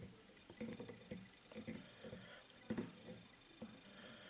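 Faint rustling and small scattered clicks of fingers handling the thread and dubbing while winding them around the hook in a fly-tying vise. The loudest click comes a little before three seconds in.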